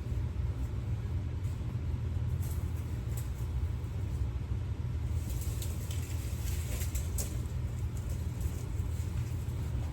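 A steady low rumble, with light crackling of dry sticks being gathered and handled, densest about halfway through.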